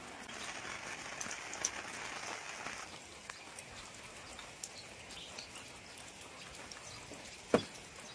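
Rain falling: a steady hiss with scattered ticks of drops, a little heavier in the first three seconds. One sharp knock sounds about seven and a half seconds in.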